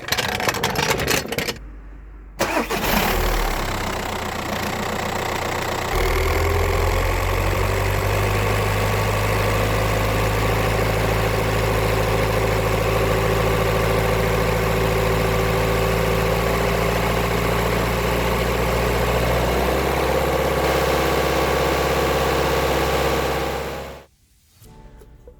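VW Passat B6's 1.9 TDI four-cylinder turbodiesel starting up after its oil and filter service, then idling steadily. The engine note cuts off abruptly near the end.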